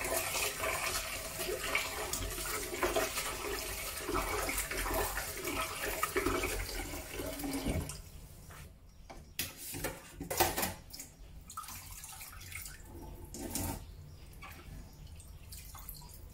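Kitchen tap running into a plastic bowl of shrimp in a stainless steel sink as hands swish them clean. The water cuts off about eight seconds in, leaving a few short splashes and knocks as the wet shrimp are handled.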